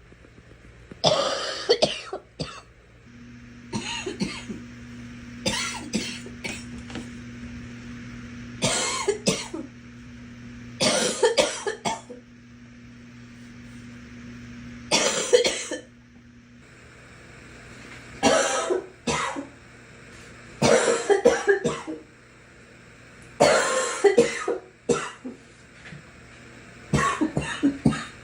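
A girl coughing over and over, in short fits of two or three coughs that come every few seconds.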